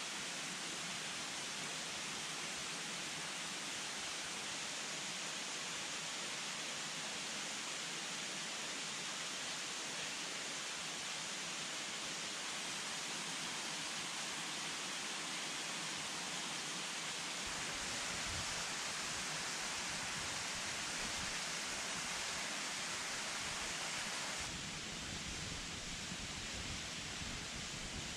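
Mountain stream rushing, a steady even rush of water.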